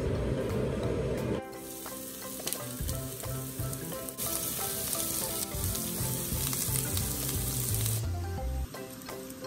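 Sliced onions sizzling as they fry in hot olive oil in a nonstick pan, the sizzle strongest for a few seconds from about four seconds in, over a light background tune. A steady rushing noise fills the first second and a half.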